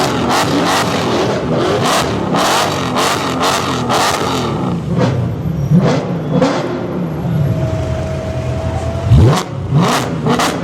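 Mercedes-AMG C63 V8s with iPE Valvetronic exhausts being revved repeatedly, engine pitch climbing and dropping with each blip, with many sharp exhaust cracks throughout. The loudest moment is one quick, steep rev near the end.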